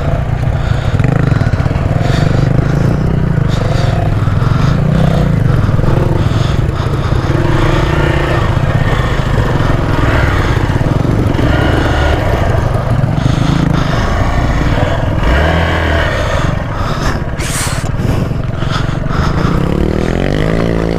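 Hero XPulse 200's single-cylinder engine running steadily at low speed on a rough off-road trail, with the revs rising near the end.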